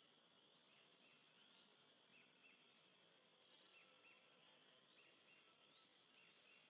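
Faint outdoor background of small birds chirping: short high chirps and quick rising and falling notes, repeated every half second or so, over a steady hiss.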